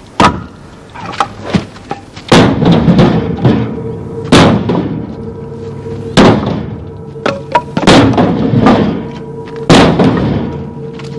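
Music with a heavy hit about every two seconds and a steady held note coming in about two seconds in.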